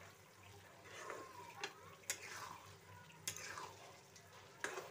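A spatula stirring paneer and peas through a thick masala in a kadhai: faint wet scraping, with about four sharp clicks of the spatula knocking the pan.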